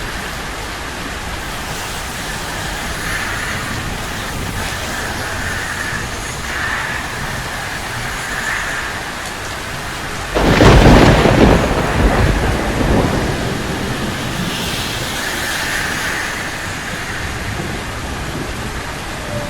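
Steady rain, with a sudden loud thunderclap about halfway through that rumbles away over the next few seconds.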